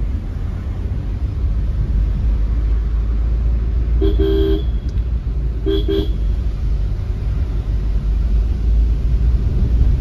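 A car horn honks twice, a longer toot about four seconds in and a short one just under two seconds later. Under it runs the steady low rumble of a car driving on the road.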